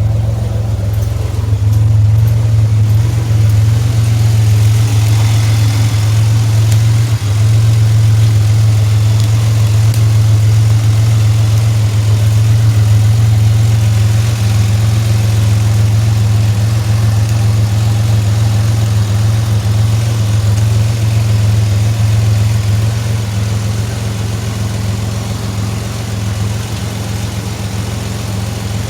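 Pontiac Grand Prix engine running at a steady idle, a deep even hum that eases slightly near the end.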